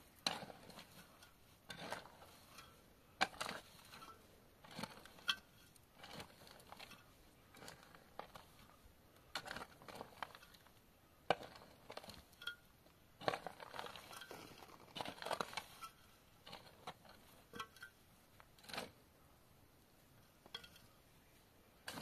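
Irregular clinks, knocks and scraping rustles of things being handled by hand, in short separate strokes with brief gaps between them.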